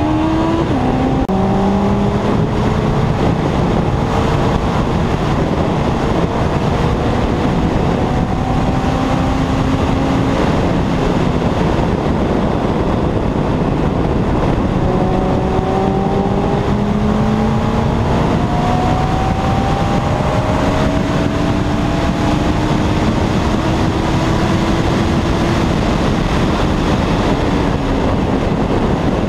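2001 Yamaha R1's inline-four engine pulling at high speed under heavy wind roar on the helmet microphone. Just after the start the pitch drops with an upshift, then climbs slowly in long sweeps.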